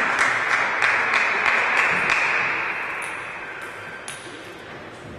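Hand clapping after a point, dying away over a couple of seconds, followed by a few separate sharp ticks of a table tennis ball bouncing.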